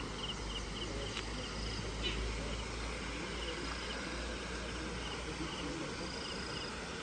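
An insect chirps in short high pulses, repeated several times a second, over a steady low rumble.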